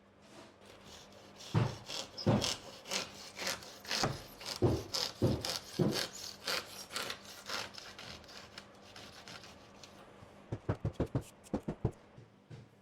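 Irregular rough rubbing and rasping strokes on wood or board. Near the end comes a quick run of about eight sharp taps.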